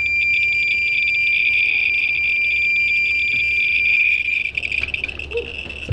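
Handheld radiation detectors held against radium-painted aircraft gauge dials, sounding a steady high-pitched tone with rapid clicks running through it. This is a high count rate from the radium luminous paint. About four and a half seconds in, the tone breaks up into separate clicks and eases off.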